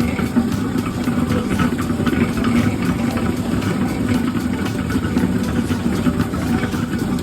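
Sweet potato peeling machine running: a steady motor hum with a dense, continuous rattle of the load churning inside.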